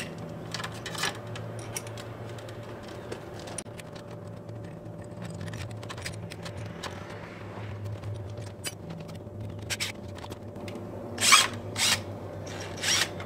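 Scattered small clicks and scrapes of hand tools on a plastic hose holder's mounting bracket. Near the end come three short bursts of a cordless impact driver backing out the bracket's screws from the wall.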